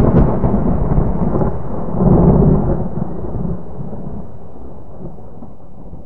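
Thunder sound effect: a deep rolling rumble that swells again about two seconds in, then fades away gradually.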